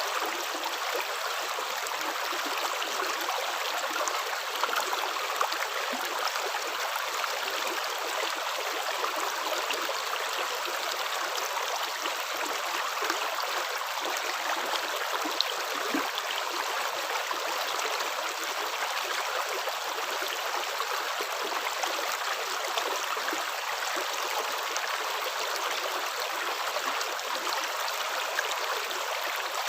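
Running water flowing steadily, the constant rush of a stream with faint scattered droplet ticks.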